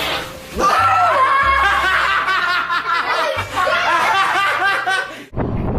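People laughing and snickering hard, over background music, for about five seconds; the laughter cuts off abruptly near the end.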